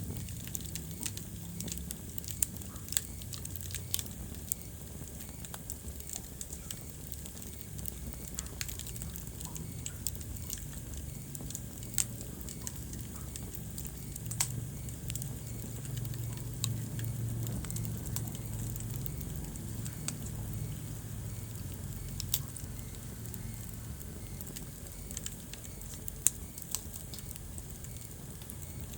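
Wood fire crackling in a fireplace: irregular sharp pops and snaps, a handful louder than the rest, over a steady low rumble of the flames.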